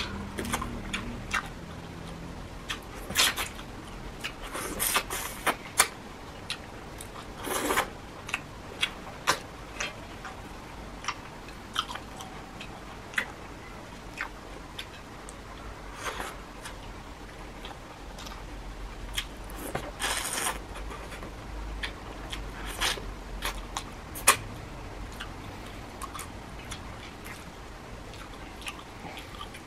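Close-up mukbang eating of shrimp: chewing with wet mouth smacks and crunches, coming irregularly, with a few sharper, louder clicks scattered through.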